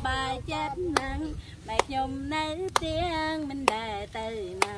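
A woman singing a simple tune with hand claps about once a second, clapping along in time.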